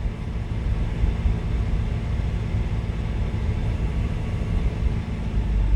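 BMW N55 turbocharged straight-six running steadily at a raised idle while the car's electronic oil level measurement takes its reading.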